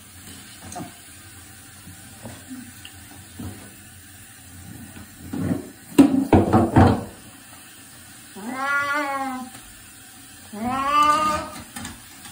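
Wet cat meowing while being bathed: two long, drawn-out meows about two seconds apart in the second half. Around the middle comes a brief noisy burst with several knocks, the loudest moment.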